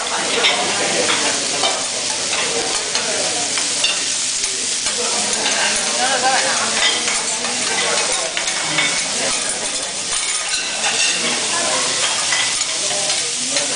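Food sizzling on a hot teppanyaki griddle, a steady frying hiss with frequent sharp clicks and scrapes of metal utensils working on the steel plate.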